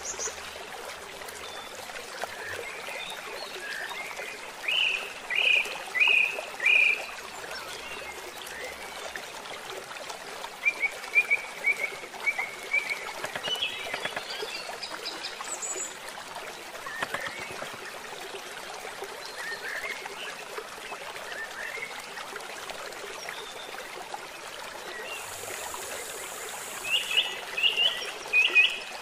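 Steady rush of running water, like a flowing stream, with clusters of short chirping calls about five seconds in, again around the middle, and again near the end.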